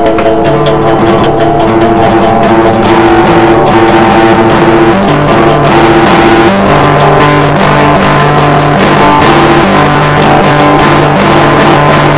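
Guitar-led instrumental music with held notes that change every second or so over a steady beat, with no singing.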